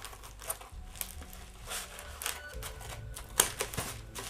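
Shipping package being opened by hand: irregular clicks and rustles of cardboard and packing material, with one sharp click about three and a half seconds in.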